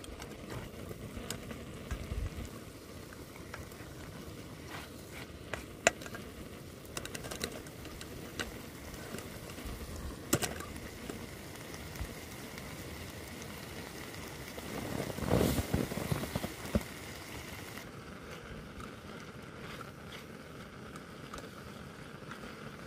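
Pork mince and vegetables sizzling as they stir-fry in a small pan, with scattered clicks and scrapes and a busier stretch of them about two-thirds of the way through.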